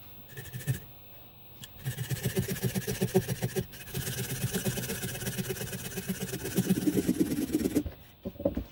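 Folding pruning saw cutting through a cherry branch by hand: a quick, even run of saw strokes that starts about two seconds in and breaks off briefly near the end.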